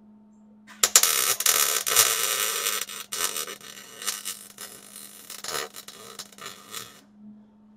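Wire-feed welder arc crackling as it welds a steel oxygen-sensor bung onto the exhaust pipe. It starts about a second in, pauses briefly about three seconds in, and stops about seven seconds in.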